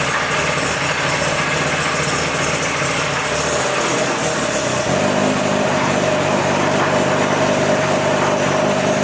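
Chassis dynamometer running, with a steady mechanical drone and a whine that grows stronger about halfway through. Its drive belt pulley sits a quarter to half an inch out of line with the other, which makes it noisy.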